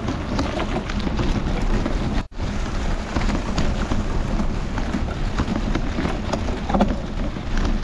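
Wind buffeting an action camera's microphone over the crackle of a pack of mountain bikes' tyres and rattling bikes on a dirt trail covered in dry leaves. The sound cuts out for a moment about two seconds in.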